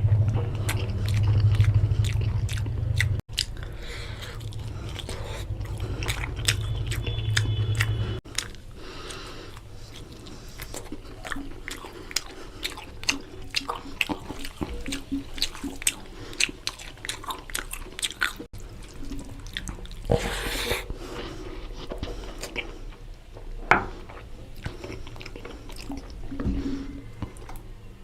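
Close-up eating sounds of mutton curry and rice: wet chewing, lip smacks and short clicks, irregular throughout. A low steady hum sits under the first few seconds and stops suddenly.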